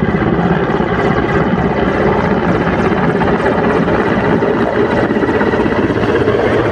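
Mi-17 military transport helicopter descending to land, its rotor and twin turboshaft engines running with a loud, steady, fast rotor beat.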